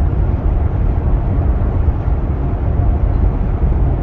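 Steady low rumble of a car's tyres and engine on the road, heard from inside the cabin while driving.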